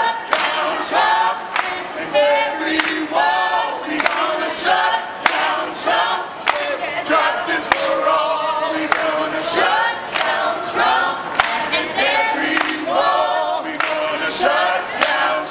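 A choir of mixed men's and women's voices singing together while marching, with hand clapping throughout.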